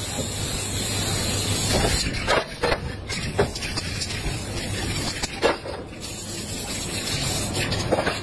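Aerosol spray-paint cans hissing in bursts as paint is sprayed onto a canvas, with a few short clicks or knocks between the sprays.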